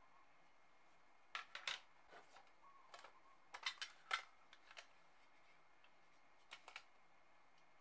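Watercolour palette cases, plastic and metal, clicking and clacking as they are handled, opened and set down on a wooden desk. Three short clusters of sharp clicks: about a second and a half in, around four seconds in, and a fainter pair near the end.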